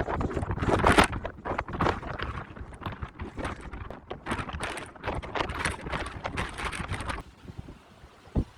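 Strong gusty wind buffeting the microphone in irregular blasts, dropping off suddenly near the end.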